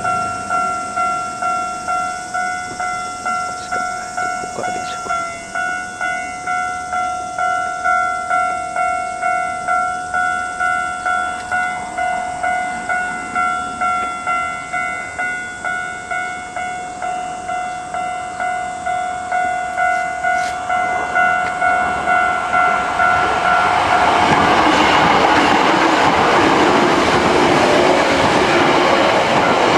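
Railway level-crossing warning bell ringing its 'kan-kan' in an even, repeating beat of about one and a half strikes a second. After about 23 seconds an electric train passing over the crossing takes over, a loud steady rush and rumble of wheels on rails.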